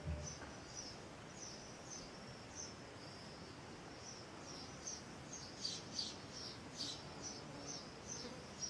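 Cricket chirping, a faint, regular series of short high chirps about three a second. A soft low thump sounds right at the start.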